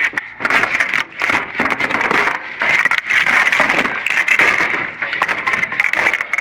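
Irregular crackling, knocking and rustling as bundles of network cable and boxes are handled and shifted while digging through dumpster debris.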